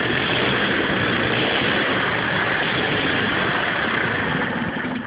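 Bench-mounted Fichtel & Sachs Wankel rotary engine spinning loudly and steadily, then stopping abruptly about five seconds in.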